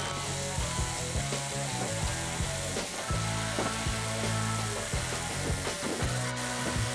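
Background music with held chords and a light regular beat, over a fast, sizzling hiss from the rotary hammer and core bit grinding through concrete, played back sped up.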